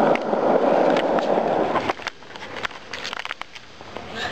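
Skateboard wheels rolling over rough asphalt, a loud steady rumble that cuts off about two seconds in. After it come a few light scrapes and knocks.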